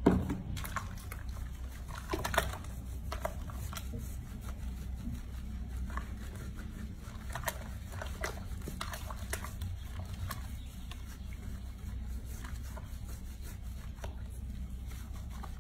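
Wet squelching and small splashes of hands working shampoo lather into a young monkey's fur in a sink of soapy water, with many soft scattered clicks. A knock right at the start as a plastic shampoo bottle is set down on the counter.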